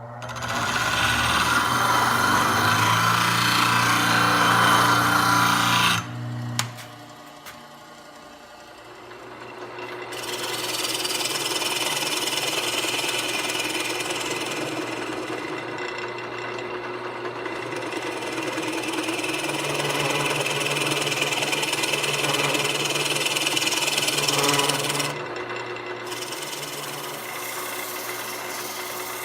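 Wood lathe running with a walnut bowl being worked on the spinning blank: a steady hissing, scraping noise over a low motor hum. It cuts off sharply about six seconds in, returns around ten seconds, and drops again a few seconds before the end.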